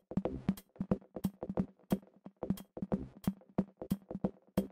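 Electronic background music with a drum-machine beat of short, sharp hits over a steady low note.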